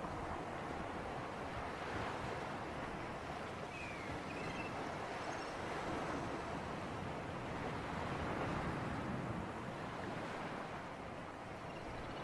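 Sea waves washing on the shore with a steady sea breeze, a continuous rushing hiss that swells and eases gently. A few faint high chirps come about four to five seconds in.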